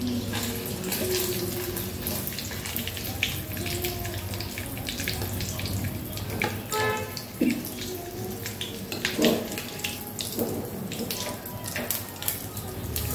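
Oil sizzling and crackling in a black iron karahi as food shallow-fries, with a metal spatula scraping as the fried piece is lifted out.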